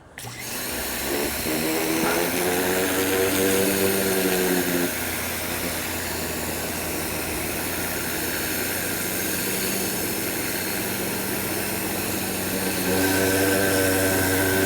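Ryobi 1600 PSI electric pressure washer running, its motor and pump humming under a steady hiss of spray. It starts abruptly. A higher-pitched hum comes in about a second and a half in, drops away around five seconds, and returns near the end.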